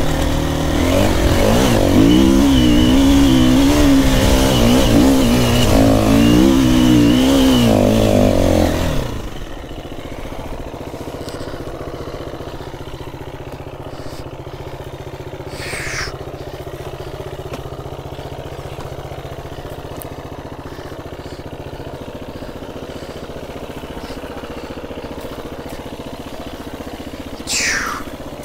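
Four-stroke KTM EXC-F dirt bike engine revving hard with an unsteady, surging pitch as it claws up a loose shale hill. After about nine seconds it drops suddenly to a steady idle. Two short, high, falling squeals come over the idle, one midway and one near the end.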